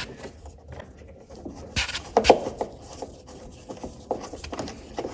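Scattered light clicks and knocks of fridge door hinge parts being handled and fitted, with a cluster of sharper knocks about two seconds in, between quieter rubbing and scraping.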